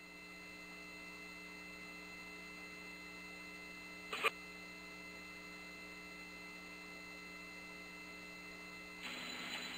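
Steady electrical hum made of several fixed tones on a quiet launch-control audio line between radio calls. There is a short click about four seconds in, and hiss rises near the end.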